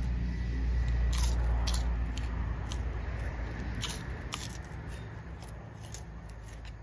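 Crispy puffed rind cracker (Shan nang pong) being snapped by hand and bitten, a quick series of sharp crunches, with a low rumble under the first couple of seconds.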